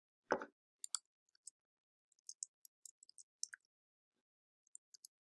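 A short thump, then scattered faint, sharp clicks of computer keys and a mouse as files are saved and the browser page is reloaded.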